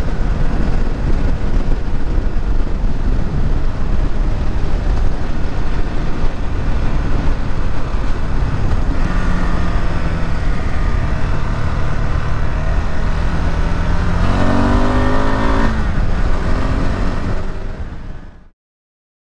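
KTM 390 Adventure's single-cylinder engine running under way at road speed, its pitch climbing as it accelerates about nine seconds in and again around fourteen seconds. The sound fades out and cuts off shortly before the end.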